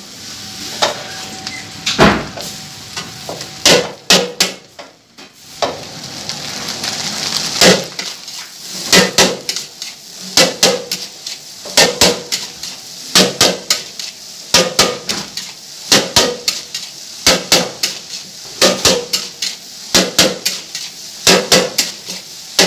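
Flat steel spatula clanking against a large steel wok as fried rice is beaten and broken up, in repeated strikes about once or twice a second, over a steady sizzle of the rice frying.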